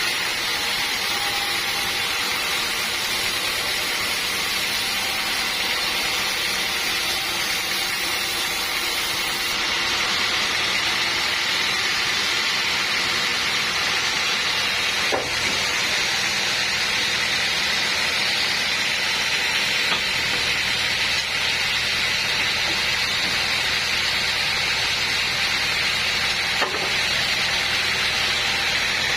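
Sawmill saw running steadily through teak wood: a continuous hiss with a steady high whine and a few faint clicks.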